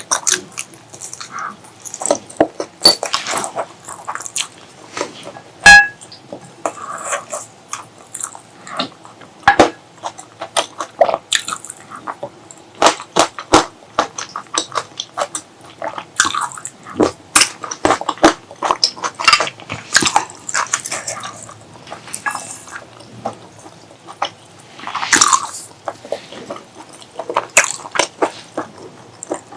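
Close-miked eating: irregular chewing, biting and wet mouth sounds, with one sharp, briefly ringing click about six seconds in.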